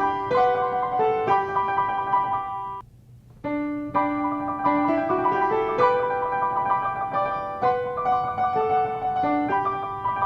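Piano music playing a simple melody of held notes, breaking off for about half a second near three seconds in before resuming.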